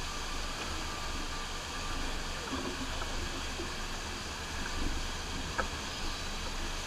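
FlowRider sheet-wave machine running: a steady rush of pumped water sheeting up the padded riding surface, over a low rumble. A single click about five and a half seconds in.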